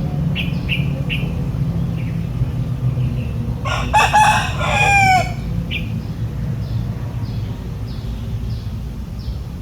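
Rooster crowing once, a call of under two seconds that falls in pitch at its end, a few seconds in. Short high chirps come before and after it, over a steady low rumble.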